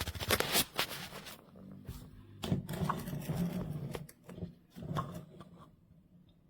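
Handling noises: irregular clicks, scrapes and light knocks of small objects being moved and set down. They come in bursts with a few brief clinks and stop about a second before the end.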